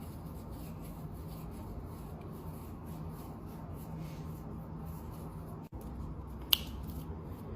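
Metal rings and bangles clicking and rubbing together in small faint taps, with one sharp click about six and a half seconds in, over a low steady hum.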